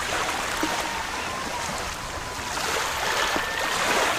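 Heavy monsoon rain falling, a dense steady hiss that grows a little louder near the end.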